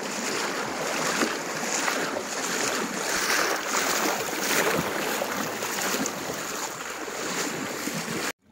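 River water flowing fast over a shallow bed, a steady rushing of moving water close to the surface.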